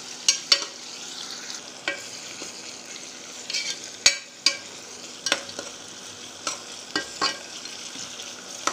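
Sliced onions and ginger-garlic paste sizzling in ghee and sesame oil in a stainless-steel pressure cooker, being sautéed until brown. A metal spoon stirs them, scraping and clinking against the pot at irregular moments over the steady sizzle.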